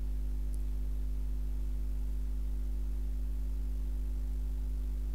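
A steady low hum that does not change.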